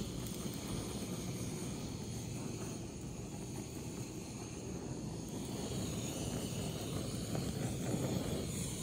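Handheld butane blow torch running with a steady rushing hiss while singeing the skin of a whole raw chicken, a little louder near the end.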